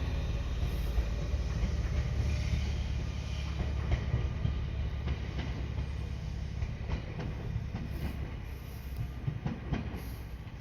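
Gakunan Railway electric train running along the track, its wheels clacking over the rail joints, growing steadily quieter as it moves away.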